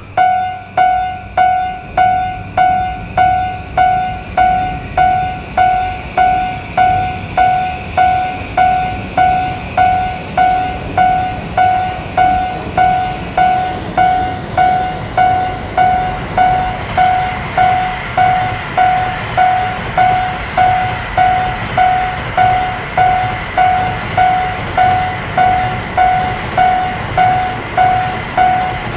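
Japanese railway level-crossing alarm ringing steadily, an evenly repeated electronic ding about one and a half times a second. A train's running noise builds up under it from about a quarter of the way in.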